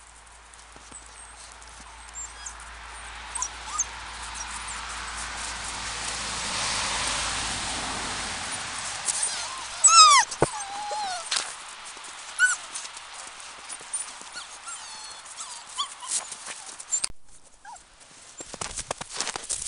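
Seven-week-old Samoyed puppies giving short, high yips and whines as they play, with the loudest yelp about halfway through, over scattered crunching in the snow.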